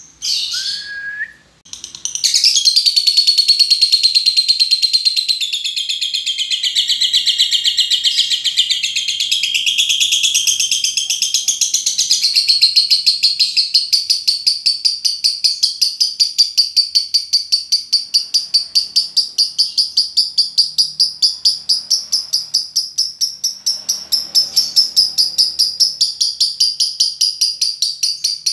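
A lovebird's ngekek: after a few short chirps, a long unbroken chattering trill of fast, high-pitched repeated notes carries on for more than twenty seconds.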